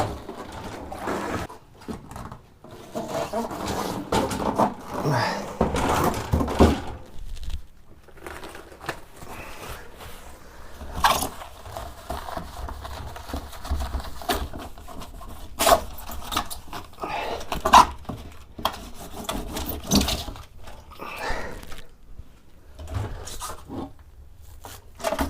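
Scattered knocks, clicks and scrapes from a metal vintage sewing machine being handled and worked on.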